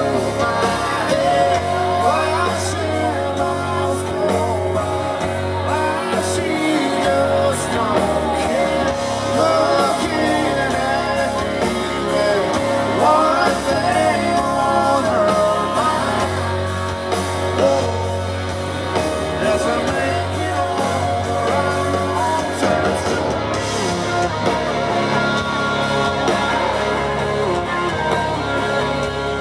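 Live country-rock band playing: electric guitars and a drum kit, with singing over the top, heard as a loud concert mix.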